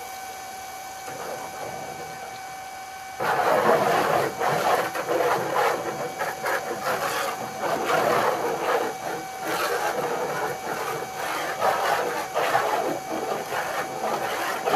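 Pressure washer spraying a wooden deck: about three seconds in the spray starts abruptly, a loud hiss with spattering on the boards that rises and falls as the wand moves, over a steady hum.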